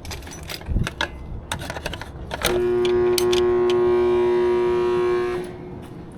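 Air-conditioner compressor humming as it is powered up but fails to start: a loud steady electrical buzz that lasts about three seconds and cuts off suddenly, after a few sharp clicks. The compressor is not kicking on, which calls for a hard start kit.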